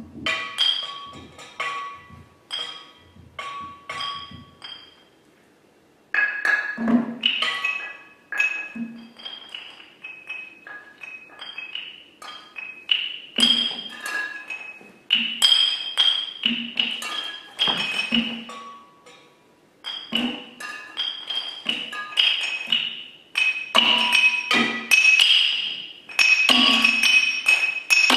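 Solo percussion played with sticks on a small table set-up of resonant objects, including glass bottles and small drums. Quick, irregular strikes ring out as short pitched notes and clinks. The playing stops for about a second around five seconds in, then resumes and grows denser and louder toward the end.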